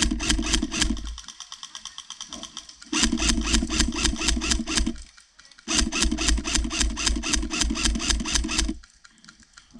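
Airsoft electric rifle firing long full-auto bursts: a steady motor whirr under rapid, even clacking of the gearbox. Three bursts of two to three seconds each, ending about a second in, near the middle and near the end, with fainter clicking in the first pause.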